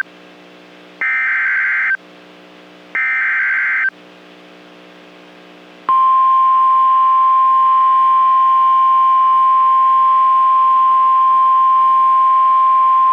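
NOAA Weather Radio emergency alert signal: two roughly one-second bursts of SAME header data tones with short pauses between them, then about six seconds in a loud, steady 1050 Hz warning alarm tone that holds unbroken. This sequence opens a new warning-level alert, here a severe thunderstorm warning.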